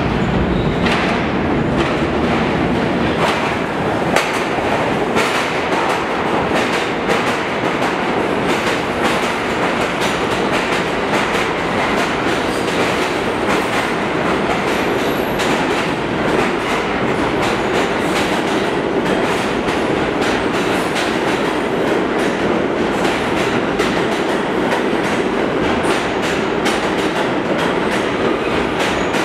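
New York City Subway R46 train pulling into an underground station and running along the platform: a steady rumble of the cars with the clickety-clack of wheels over the rail joints.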